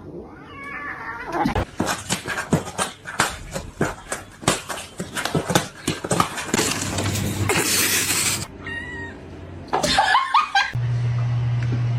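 A cat's short cries mixed with bursts of rapid laughter, followed by a steady low hum near the end.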